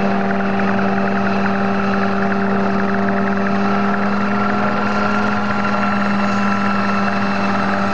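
Homemade light helicopter running, its engine and rotor giving a loud, steady drone with a strong low hum that holds an even pitch throughout.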